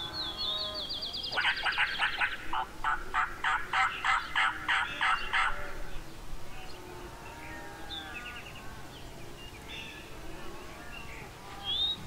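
Turkey calling: a high opening note, then a fast, loud run of hen-turkey yelps at about four a second for some four seconds, made to get gobblers to answer. Faint cattle lowing and softer calls follow in the background.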